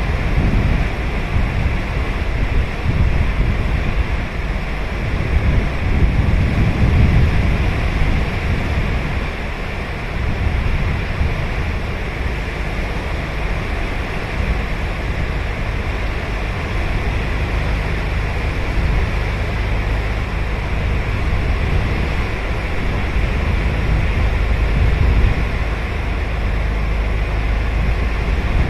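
Sea surf washing onto a beach: a steady rushing wash over a deep low rumble, swelling a little now and then.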